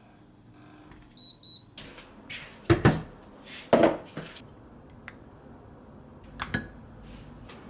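A short high double electronic beep about a second in, followed by a few loud, brief clattering knocks of things being handled, three in all.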